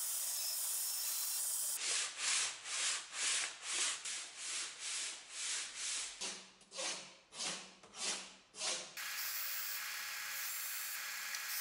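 Band saw cutting an ash wood block with a steady hiss, then hand-worked rubbing strokes on the wood, back and forth about twice a second for several seconds. Near the end a belt/disc sander runs steadily as wood is pressed to its sanding disc.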